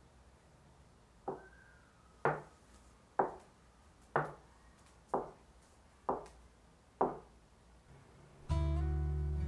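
Metal bench scraper chopping a log of potato gnocchi dough against a wooden cutting board: seven sharp knocks about a second apart. Acoustic guitar music comes in near the end.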